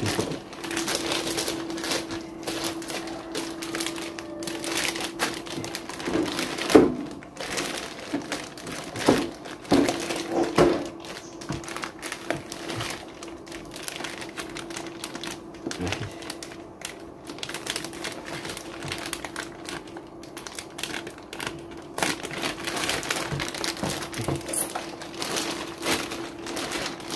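Clear plastic bag crinkling and rustling as a mixer is pulled out of it by hand, with a couple of louder knocks about seven and ten seconds in. A steady low hum runs underneath.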